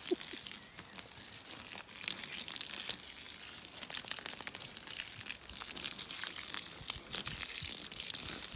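Water spraying from a garden hose onto grass and leafy plants: a steady high hiss with many small ticks as the spray hits the leaves.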